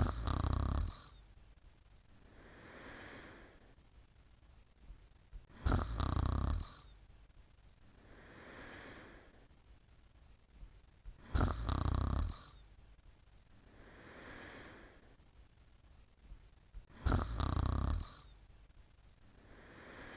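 Snoring in slow, regular breaths: a loud snore on each breath in, about every six seconds, each followed a few seconds later by a softer breath out.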